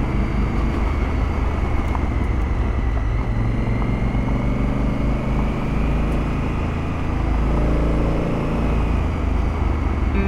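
Honda Africa Twin adventure motorcycle's engine running under way on a gravel road, with wind and road noise. The engine note climbs from about three seconds in as it pulls harder, and drops back near the end.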